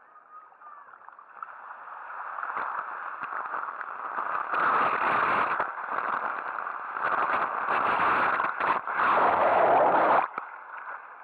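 Rushing, splashing water noise of a fast ride down a steep speed slide, heard from a camera riding at the slider's feet. It builds over the first few seconds, comes in loud surges, and cuts off abruptly about ten seconds in as the camera plunges under the pool's surface.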